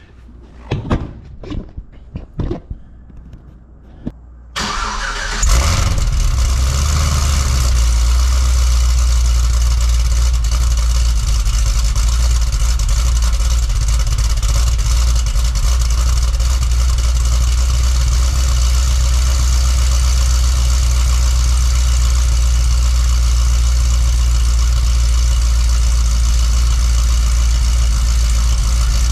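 Cadillac CTS-V Wagon's supercharged 6.2 L V8 cold-started through its factory mufflers, with the exhaust cutouts closed. A few clicks and knocks come first, then a short crank about four and a half seconds in. The engine catches and settles into a loud, steady idle with a deep low rumble, running after repair of a spark plug wire that had been arcing and causing a misfire.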